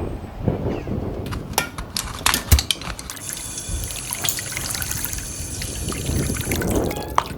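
Water pouring and trickling, with scattered clicks and a knock about two and a half seconds in; from about three seconds in the flow settles into a steady hiss.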